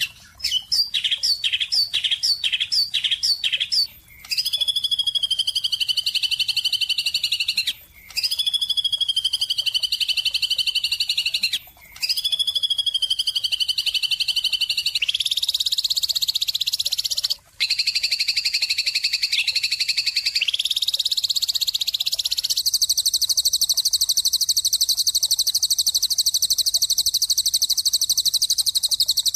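Songbird chirps and trills in segments separated by abrupt cuts. First comes a run of short descending chirps, about two a second, then long, rapidly pulsed trills that waver slightly in pitch.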